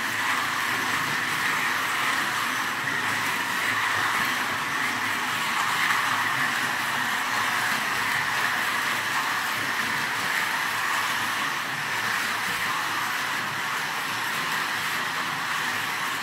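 Carrera electric slot cars running laps on the plastic track, a steady whir of small motors and wheels that keeps up without a break.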